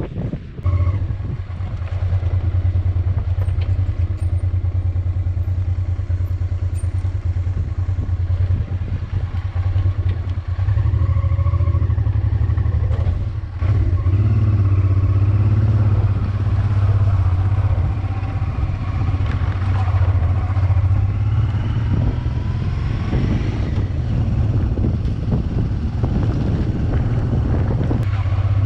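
Honda Transalp motorcycle engine running under way, a steady low drone whose pitch rises and falls a few times with the throttle, with a brief drop in level about 13 seconds in.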